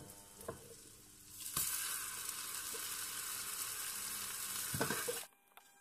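Egg-dipped bread frying in butter in a frying pan, sizzling steadily. The sizzle starts suddenly about a second and a half in, after a few light taps, and cuts off abruptly near the end.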